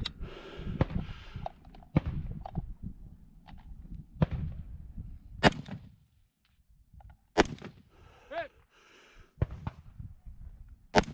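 Rifle shots fired one at a time at uneven intervals of one to four seconds, about six in all, with rustling handling noise between them.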